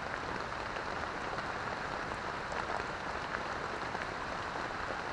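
Steady rain falling: an even hiss of drops with a few faint ticks.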